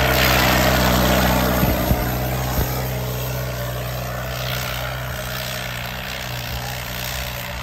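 John Deere 5310 tractor's diesel engine running hard under load in a tug-of-war pull, a steady deep drone that eases slightly in loudness after the first few seconds. A few short knocks sound about two seconds in.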